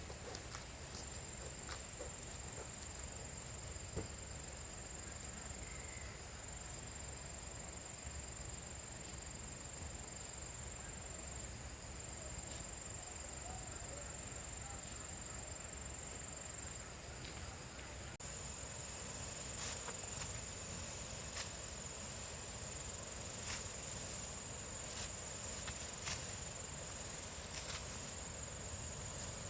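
Insects trilling in a steady high-pitched drone, its pitch shifting slightly about two-thirds of the way through, with a few faint clicks in the background.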